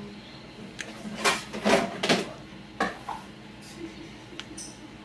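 Plastic bottle of fabric medium being handled at its cap: three quick rasping scrapes a little over a second in, then a sharp click, with a few faint ticks.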